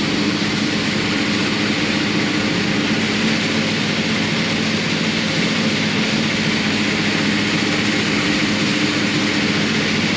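16-spindle braiding machine running at speed, braiding a cover over wire: a loud, steady mechanical whir with a low hum and a thin high whine that hold even throughout.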